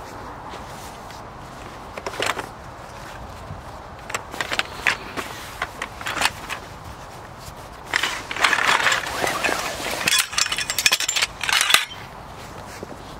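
Tent gear being handled: a fabric stuff sack rustling and aluminium tent poles knocking together as they are taken out and laid down. The sounds come in short irregular bursts at first and turn into a dense spell of rustling and clicking in the latter half.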